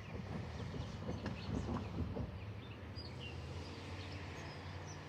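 Distant CSX freight train's diesel locomotives rumbling low and steady as the train approaches, swelling briefly about a second and a half in, with birds chirping over it.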